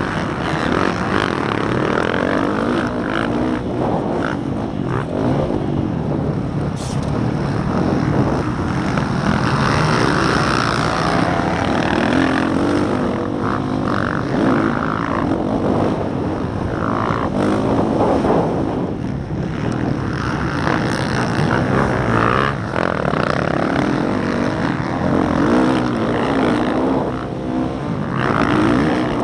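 Motocross bike's engine heard close up from the bike itself, revving up and falling off again and again as the rider works the throttle and gears at race pace, with other race bikes running close by at the start.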